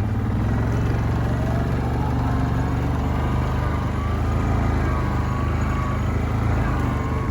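Engine running steadily with an even, rapid low pulse.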